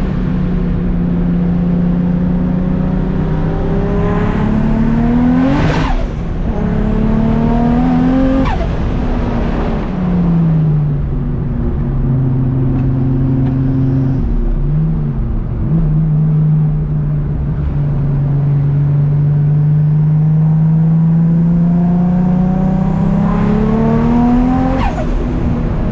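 Big-turbo 1997 Toyota Supra's 2JZ-GTE inline-six under way: revs climb twice early on, then hold steady at lower revs, then climb slowly again near the end. Each climb ends in a brief sharp hiss and a drop in pitch.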